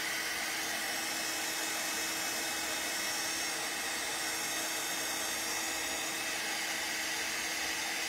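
Craft heat tool blowing hot air with a steady rushing sound and a low steady hum, drying wet ink on watercolour paper.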